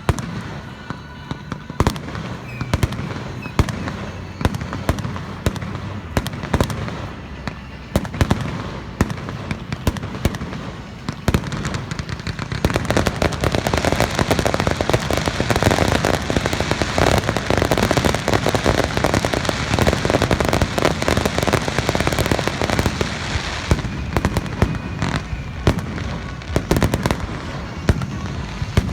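Aerial fireworks bursting in quick succession with sharp bangs and crackle, building about twelve seconds in to a dense, louder barrage that thins out again a few seconds before the end.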